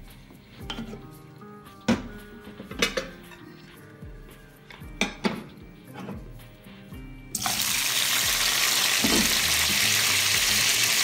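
A few clanks of utensils against the steel pan and plate. About seven seconds in, a loud sizzle starts suddenly as pieces of boiled beef go into hot oil with fried onions, and it keeps going steadily.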